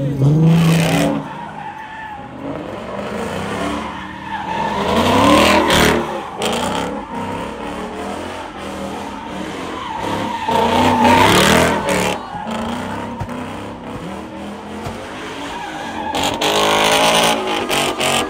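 Car engine revving hard in repeated surges while the tires squeal and skid, the car doing donuts or drifts.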